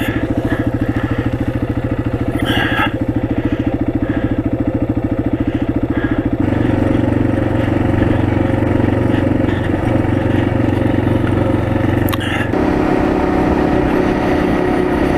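Motorcycle engine running steadily while riding. It pulls harder, with a heavier, louder note, about six seconds in, and changes note again near the end.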